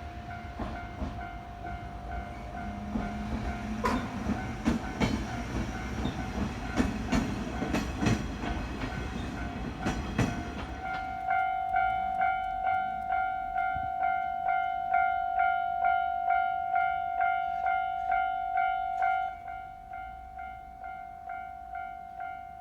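A train passes over the level crossing with wheels clattering over rail joints while the crossing's warning bell rings. Once the train has cleared, about halfway through, the crossing bell rings on alone, evenly, about two strokes a second, and turns quieter near the end.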